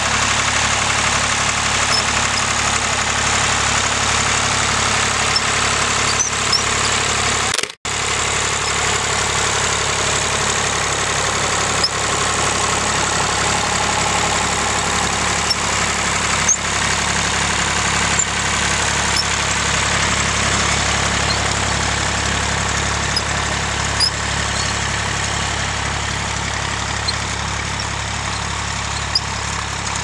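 Massey Ferguson tractor engine running steadily under load while pulling a seed drill, with a brief cut-out about eight seconds in.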